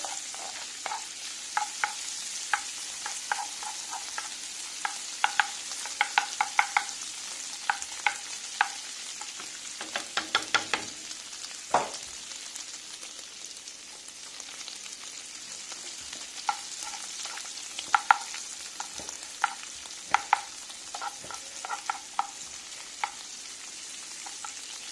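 Diced pork fat (salo) sizzling with a steady hiss as it renders into cracklings in a frying pan. A wooden spatula stirs it, scraping and tapping against the pan many times, and the stirring stops for a few seconds about halfway through.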